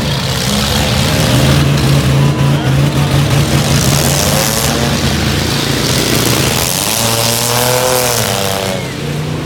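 Demolition derby trucks' engines running loud and revving.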